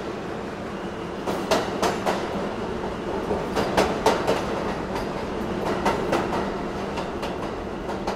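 Subway train passing through a station: a steady rumble with the wheels clacking over rail joints in quick pairs, about every two seconds.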